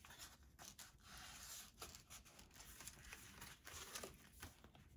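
Faint rustling and scraping of paper and card: a card tag slid into a paper pocket in a handmade journal, with a few light taps as the pages are handled.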